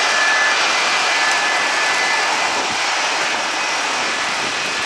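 Jet airliner engines running: a steady, loud rushing noise with a high whine that fades out about two seconds in.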